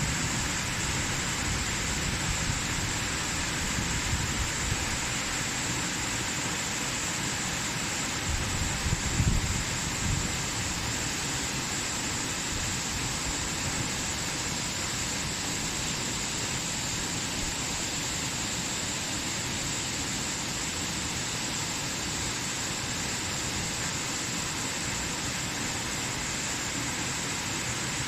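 Waterfall rushing in a steady, even hiss of falling water, with a few low rumbling bumps about nine seconds in.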